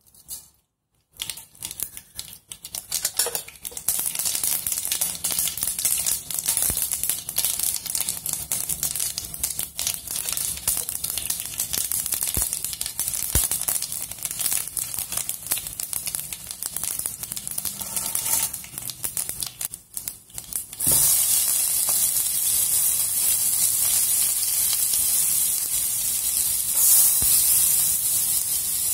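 Whole spices, fennel seed among them, crackling and spitting as they fry in hot oil in a pan. About two-thirds of the way in, it steps up to a louder, steady sizzle as chopped onion and carrot go into the oil.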